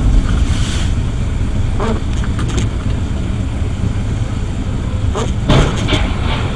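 Steady low rumble of a car's engine and tyres on a wet road, heard from inside the cabin, with a hiss of tyre spray and a few short knocks about two seconds in and again near the end.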